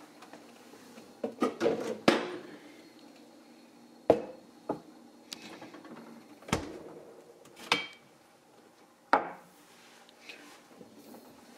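A series of separate sharp knocks and clinks, roughly one every second or so, from small hard objects being handled and set down on a hard surface.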